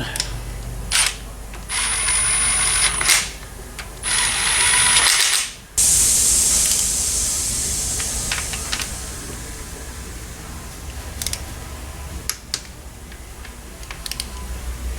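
Workshop air tool: two bursts of about a second each with a high whine over hiss, then a loud hiss that starts suddenly and fades over several seconds, with a few scattered clicks near the end.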